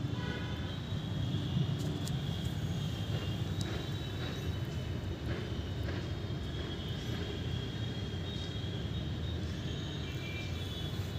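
Steady low outdoor rumble, with a few faint clicks.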